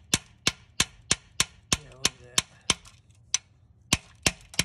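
A metal tool tapping and prodding the broken piston in an Ecotec four-cylinder block with its head off: sharp taps at about three a second, with a short pause about three seconds in. The piston crown is broken up after a connecting rod broke and the piston spun in the bore.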